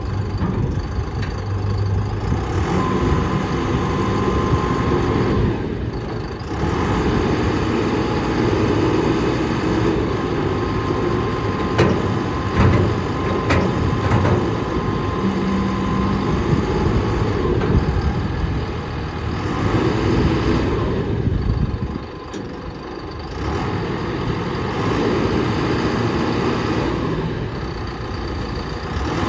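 Heavy truck diesel engine of a self-loading concrete mixer running, its sound shifting abruptly a few times between shots, with a few sharp clicks about halfway through.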